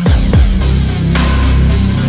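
Background music with heavy bass and deep, pitch-dropping drum hits over a steady beat.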